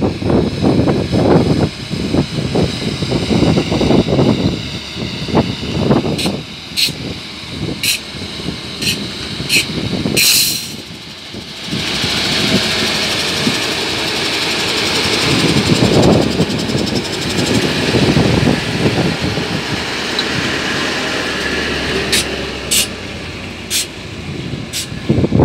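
Tatra T 2-148 S3 dump truck's air-cooled V8 diesel running, revving unevenly as the truck manoeuvres, with a short burst of hiss about ten seconds in. After that it runs steadily with a strong high hissing whine over the engine note, and there are a few sharp clicks near the end.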